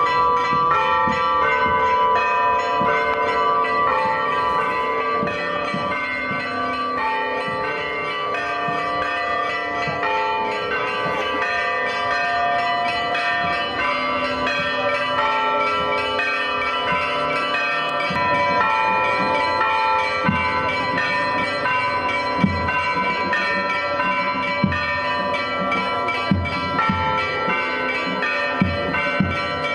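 Church bells ringing continuously, several bells overlapping, with a few sharp knocks in the second half.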